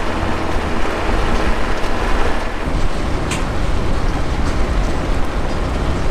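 A farm vehicle being driven, its engine and road noise steady and loud, with a faint click about three seconds in.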